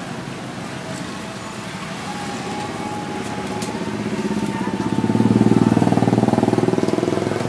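A motor vehicle's engine passing close by. It grows louder over several seconds, is loudest about five to six seconds in, then fades.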